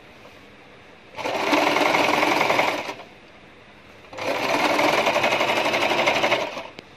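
Electric household sewing machine stitching through a gathered elastic waistband. It runs in two spells: one of about a second and a half, then a pause, then one of about two and a half seconds, each a fast, even rattle of needle strokes.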